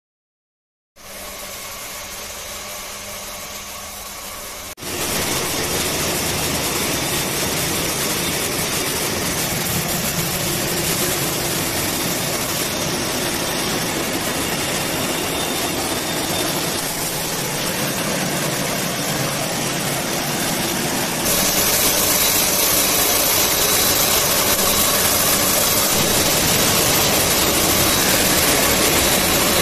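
Yarn spinning and twisting machines running, a steady, dense mechanical noise. It is quieter at first, gets much louder about five seconds in, and louder again around twenty-one seconds in.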